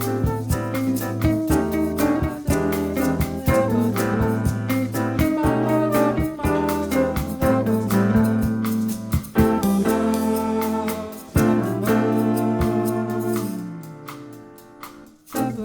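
Live jazz combo playing an instrumental bossa nova passage: plucked guitar-like notes over a walking bass and light drum kit. Near the end the playing thins out with a falling slide before the band comes back in.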